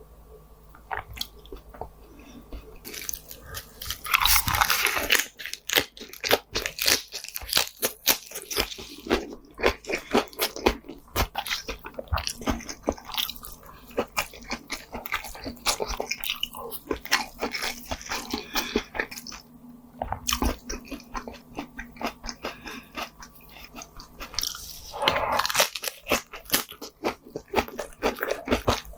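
Close-miked eating sounds: a person biting and chewing pork jowl, with many crisp, wet crunches. Louder, denser stretches come about four seconds in and again near the end.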